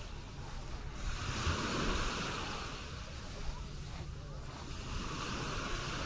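Beach ambience: small waves washing onto the sand, swelling about a second in and again near the end, over a low rumble of wind on the microphone.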